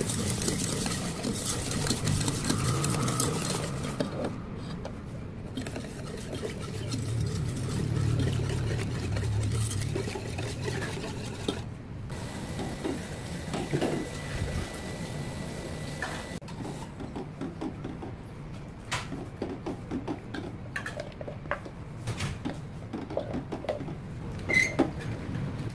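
A whisk beating an egg-and-sugar mixture, scraping against the sides of an enamel pot. Later, sparser clicks and taps as a silicone spatula stirs the thin mixture in the pot.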